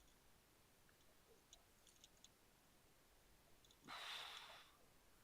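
Near silence, with a few faint clicks about one and a half to two seconds in and a short breathy rush of noise, like a sigh, about four seconds in.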